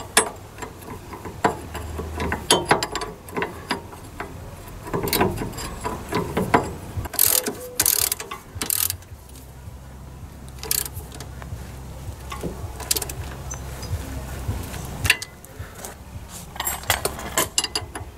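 Socket ratchet clicking in short irregular runs as a 17 mm nut is wound onto a steering arm ball-joint stud, with the loudest runs about a third of the way in and again near the end.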